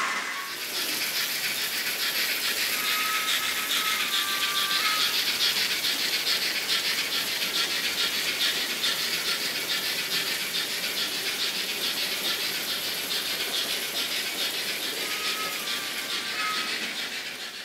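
N-scale model freight train running on the layout: the wagons' small wheels and couplings give a fast, steady clicking rattle on the track. A brief high squeal comes twice.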